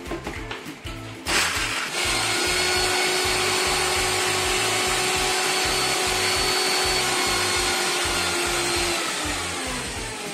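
Electric mixer grinder (mixie) running, grinding beetroot into a paste with no water added. It starts a little over a second in, runs with a steady whine, and dies away near the end when it is switched off. Background music with a steady beat plays underneath.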